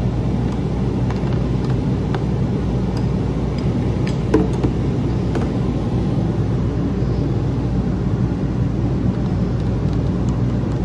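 A steady low mechanical hum, like a motor or engine running, with a few light clicks about four seconds in.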